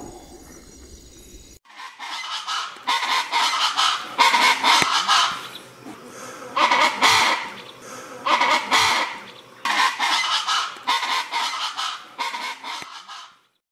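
Chaco chachalacas calling in a raucous chorus: repeated bursts of rapid, harsh, rhythmic notes from several birds, starting about a second and a half in and breaking off shortly before the end.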